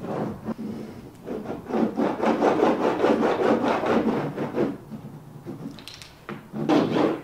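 Hands rubbing a vinyl composition tile hard against the plywood subfloor, pressing it into the adhesive: a fast scrubbing that runs for about three seconds from shortly after the start, then comes back briefly near the end.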